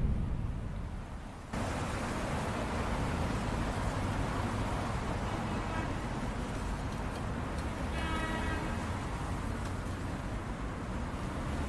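Steady roadside traffic noise: a constant hiss and low rumble of vehicles that cuts in abruptly about a second and a half in, with a brief pitched sound about eight seconds in.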